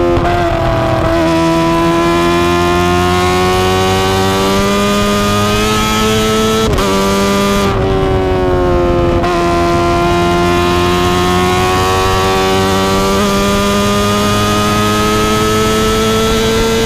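Kawasaki ZX-25R's inline-four engine running at high revs through an Akrapovic exhaust while riding, its pitch climbing slowly under acceleration. It breaks off and drops about 7 seconds in and picks up again from lower pitch about 9 seconds in, as at a gear change.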